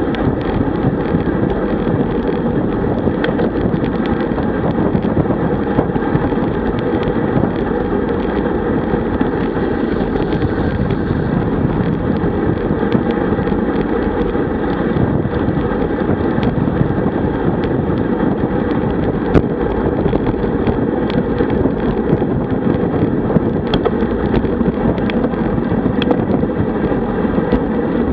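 Steady wind rush and road noise on a bike-mounted camera's microphone while a road bicycle rides at about 45 km/h.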